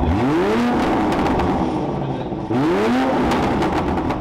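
Toyota A90 Supra revved hard twice through a straight-through titanium exhaust with no catalytic converter or particulate filter. Each rev sweeps sharply up in pitch and holds, the second coming about two and a half seconds in, with crackles over the top.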